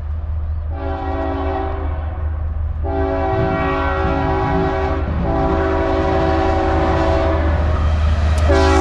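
Norfolk Southern freight locomotive's air horn sounding a chord in four blasts, the two middle ones long, over the steady low rumble of the diesel locomotives. The whole sound grows louder as the train approaches.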